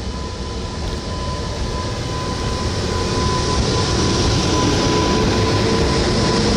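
JR Freight EH200 twin-unit electric locomotive passing close by, hauling a Mani 50 baggage car: the rumble and rail noise grow louder over the first few seconds as it comes alongside, then hold steady, with a thin steady whine above it.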